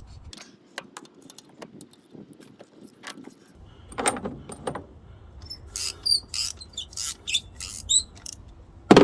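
Metal hand tools clicking and knocking as they are handled around the engine, in irregular sharp clicks with a denser run of bright metallic clinks in the second half.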